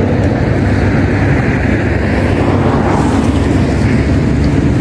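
Steady engine rumble and road traffic noise, a constant low hum with no breaks.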